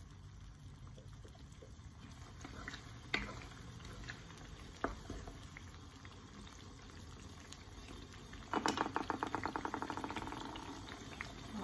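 Thick chili-tomato curry sauce bubbling in a frying pan as it comes to a boil. At first it is faint, with a few single sharp pops. About eight and a half seconds in, a rapid run of bubbles bursts, the loudest part, then tails off.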